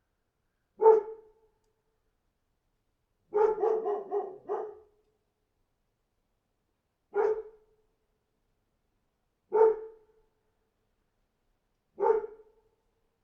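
A dog barking: a single bark about a second in, a quick run of several barks around four seconds, then three single barks spaced a couple of seconds apart.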